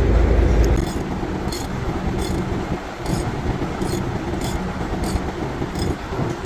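Steady low mechanical rumble with faint light clicks about every half second or so; a loud deep drone cuts off suddenly about a second in.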